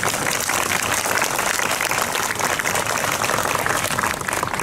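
A crowd applauding: many hands clapping together at an even level.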